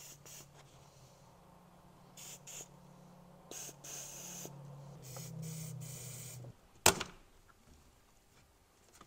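Aerosol silicone lubricant sprayed onto a rubber breather hose: a few short hisses, then longer ones. About seven seconds in there is a single sharp click, the loudest sound.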